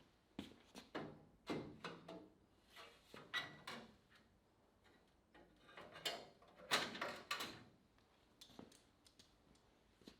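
Irregular light knocks, taps and short scraping clatters of workshop handling, coming in small bunches with quiet gaps, the loudest cluster a little past the middle.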